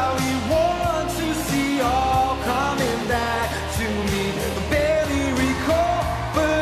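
A man singing a song live over a full band backing, with a steady bass line and regular drum hits.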